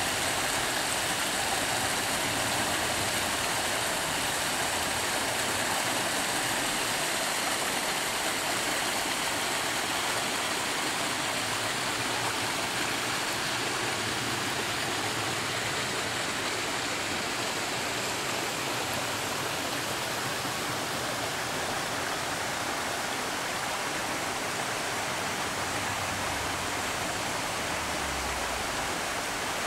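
A shallow rocky stream rushing steadily over stones and small cascades.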